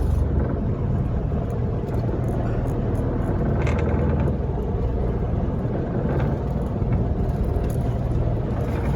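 Boat engine running steadily, a low rumble with a faint hum under it.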